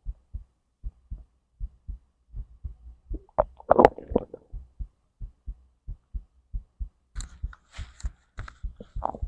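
Human heartbeat heard through the abdomen: steady double thumps, lub-dub, a little faster than one per second. About three and a half seconds in a louder stomach gurgle sounds, and near the end there are fainter crackling intestinal gurgles.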